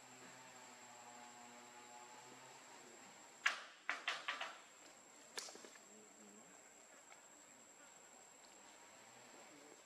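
Faint ambience with a steady high-pitched insect drone. About three and a half seconds in, a quick run of five sharp clicks or knocks breaks it, and one more comes about a second later.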